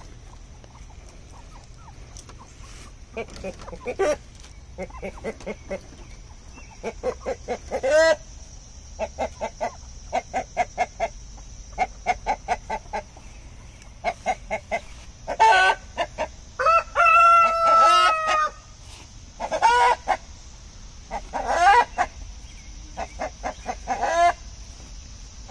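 Chickens clucking in repeated short runs of rapid notes, with one longer drawn-out call about two-thirds of the way through.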